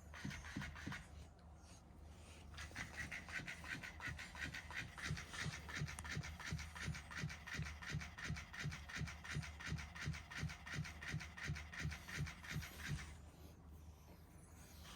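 Battery-powered toy raccoon's motor running, a steady rhythmic whirring clatter of about three to four beats a second that stops about 13 seconds in.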